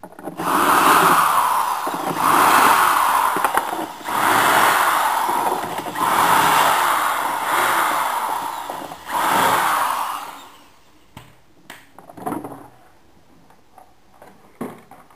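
Cordless drill/driver running in five bursts of a couple of seconds each, backing screws out of a scooter's plastic under-seat storage bin. After about ten seconds it stops, and a few light clicks and knocks follow.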